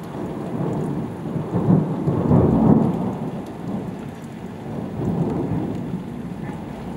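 Thunder rolling and rumbling, swelling to its loudest about two to three seconds in, then fading, with a smaller swell later on. Heavy rain falls throughout.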